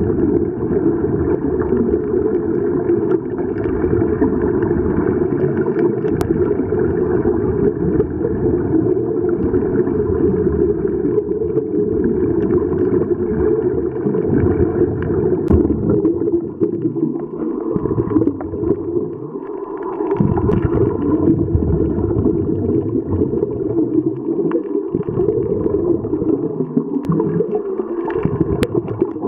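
Muffled underwater rumble and gurgling picked up by a camera below the surface on a scuba dive, with the diver's regulator bubbles. It is loud, deep and dense, and drops away briefly a few times in the second half.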